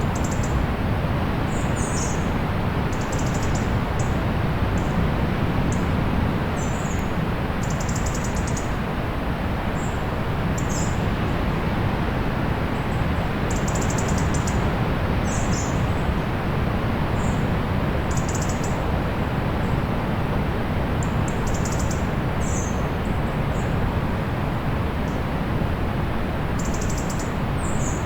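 Small birds chirping in short, high calls, scattered every second or so and sometimes in quick bursts, over the steady rush of a distant sea.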